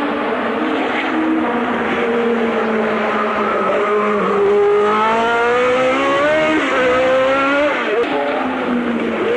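1984 Formula 1 car engine at high revs on track. The note climbs as the car accelerates, with sharp dips at gear changes, the last one about eight seconds in.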